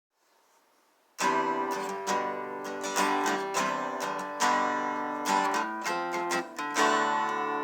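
Strummed acoustic guitar music starting about a second in, with a rhythm of chord strums.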